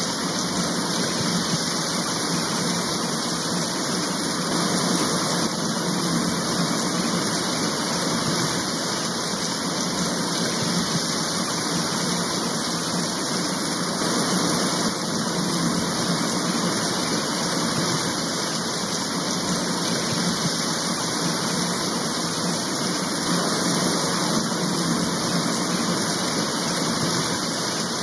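Steady rain falling, an even hiss with no single drops standing out.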